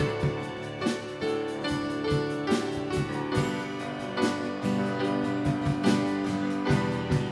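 Church worship band playing an instrumental passage at a steady pulse, with the piano prominent over acoustic guitar, drums and keyboard.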